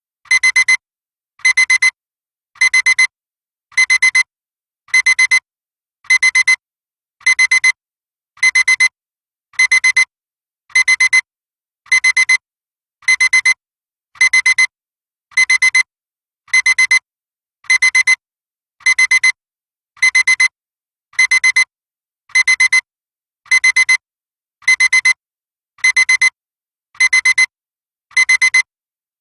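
Digital alarm clock beeping: short clusters of rapid high-pitched beeps, repeating evenly just under once a second.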